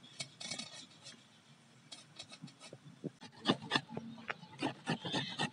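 Bottle gourd being grated on a flat metal hand grater into a steel bowl: a run of quick rasping strokes, sparse at first and denser and louder from about three seconds in.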